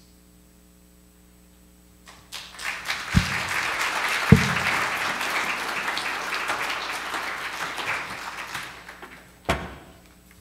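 Congregation applauding, starting about two seconds in and dying away near the end. A few dull thumps sound during it, with one more just before the end.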